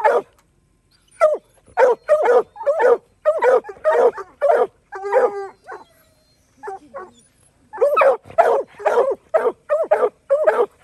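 Leashed redbone and black-and-tan hounds barking excitedly in quick runs, about two to three barks a second, with one longer drawn-out bawl about five seconds in and a short lull after it. The hounds are worked up, about to be turned loose on a fresh mountain lion track.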